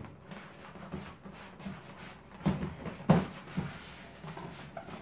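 Handling noise from a stiff plastic blister tray being worked loose and lifted out of a cardboard box, with a few sharp knocks, the loudest about three seconds in.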